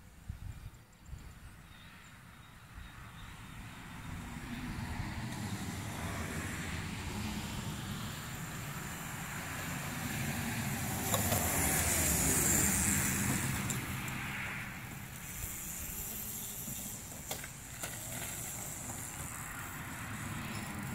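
Child's small electric dirt bike riding along a gravel and asphalt driveway: tyre rumble with a motor hum, building from about four seconds in and loudest around the middle.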